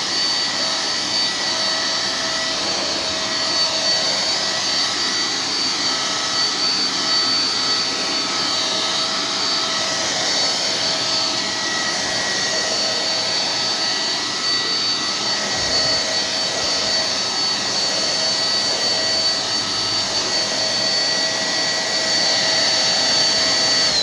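Mondial Turbo Cycle 1100 W stick vacuum cleaner running steadily while vacuuming a thick shag rug: a constant rush of air with a high, steady motor whine.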